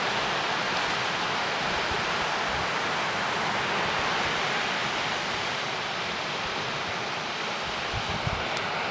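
Steady hiss of surf breaking on a North Sea beach, an even wash of noise with no distinct waves standing out. A few low bumps of wind on the microphone come near the end.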